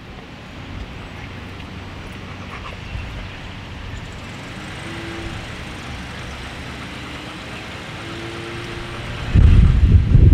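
Steady outdoor background noise like distant road traffic, with two faint short tones about five and eight seconds in. A much louder low rumble starts about a second before the end.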